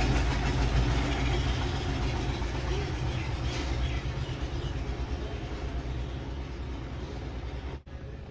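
Steady low background rumble with hiss that slowly fades, broken by a brief dropout near the end.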